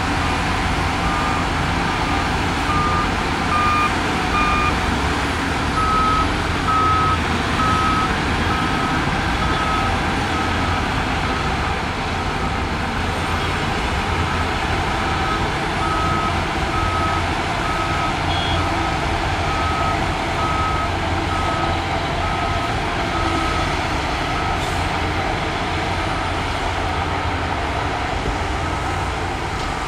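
Heavy diesel earthmoving machinery running steadily under a reverse alarm that beeps about once a second; about six seconds in the beeps shift slightly higher in pitch.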